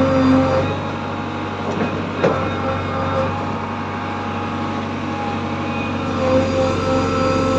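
JCB 3DX backhoe loader's diesel engine running steadily under work, with a held hydraulic-type whine that comes and goes and a single sharp knock a little over two seconds in.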